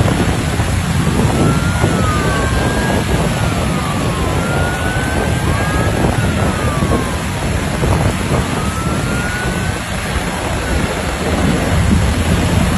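Black Hawk helicopter's rotor and turbine noise mixed with high-speed boat engines and wind on the microphone, a loud steady rushing din. A few faint whistles glide up and down in pitch through the middle.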